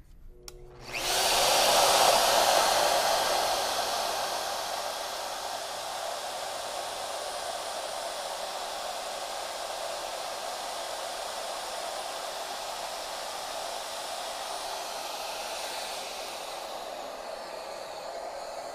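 Shaper Origin handheld CNC router spinning up with its dust extraction about a second in, then running steadily while it routes out a notch in wood, opening it a few thousandths of an inch for a friction fit. The noise eases a little near the end but keeps running.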